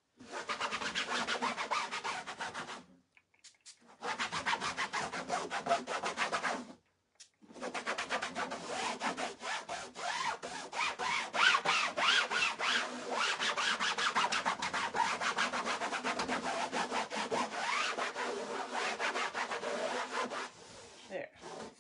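A cloth rag scrubbing quickly back and forth over a painted burlap board, rubbing sprayed tea-dye colour into the weave. It comes in three stretches of rapid scratchy strokes, with short breaks about three and seven seconds in, and grows fainter near the end.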